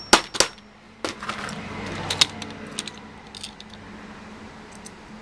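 Hammer striking the butt of a screwdriver to knock a glued neodymium magnet loose inside an old hard drive: three sharp metallic knocks in quick succession at the start. These are followed by scattered lighter clicks and clinks of tools being handled and set down.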